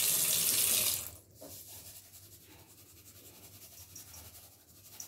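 Tap water running into a steel bowl of fish in a sink, cutting off about a second in. Then a faint, gritty rustle of salt being shaken from a plastic bottle onto the wet fish.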